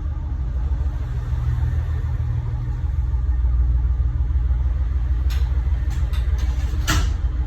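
Diesel railcar engine idling with a steady low rumble. Several sharp clicks come near the end, the loudest about seven seconds in.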